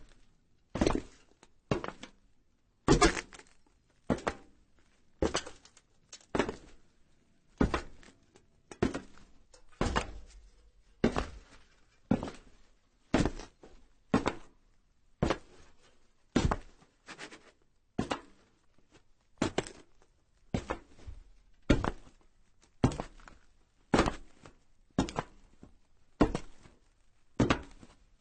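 Slow footsteps on a metal roof, about one step a second, each a short sharp thud on the sheet metal.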